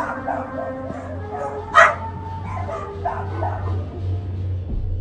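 Several dogs barking and yelping in short bursts, the loudest bark about two seconds in, over a steady low hum; the dogs are agitated by a strange droning sound heard in the night sky.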